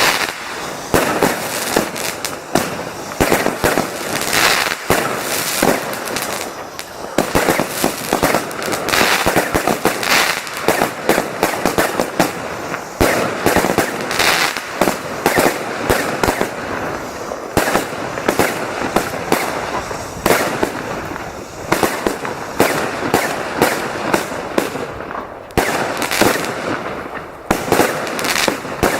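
Fireworks going off in a dense, unbroken barrage of bangs and crackles, many reports a second overlapping one another.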